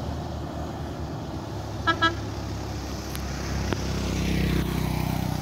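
A bus engine pulling uphill, growing louder from about four seconds in as it comes closer. Two short horn toots sound about two seconds in.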